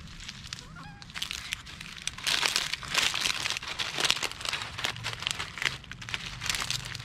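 Dry fallen leaves crackling and rustling as a young monkey moves and rummages through the leaf litter. The crackles come in irregular clusters and are busiest in the middle.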